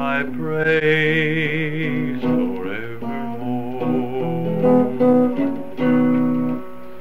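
A 1959 home tape recording of a man singing to an acoustic guitar, played back from an RCA Sound Tape cartridge: held sung notes with vibrato over strummed chords, with little treble. It ends on a held chord that dies away near the end.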